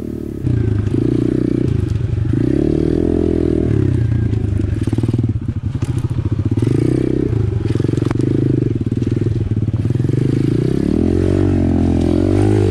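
Apollo RFZ 125cc pit bike's single-cylinder engine being ridden on a dirt trail, its pitch repeatedly rising and falling as the throttle is opened and rolled off, with a brief let-off about five seconds in.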